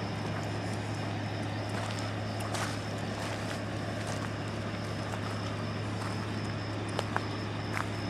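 A steady low mechanical hum with a faint high, thin whine held over it, and a few light clicks near the end.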